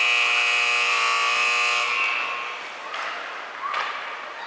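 Ice hockey arena scoreboard buzzer sounding a long, loud, steady blare that cuts off suddenly about two seconds in, leaving fainter rink and crowd noise.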